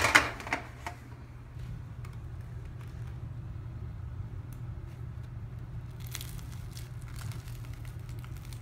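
A metal baking tray clattering down in a quick cluster of knocks at the start. Then the crisp, cracked crust of a baked tapioca bun crackles faintly as hands squeeze and tear it open, over a steady low hum.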